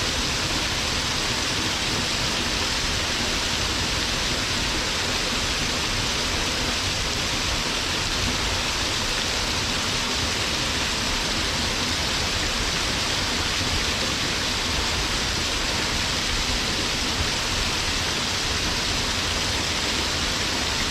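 Waterfall pouring onto rocks in a steady, even roar of falling water.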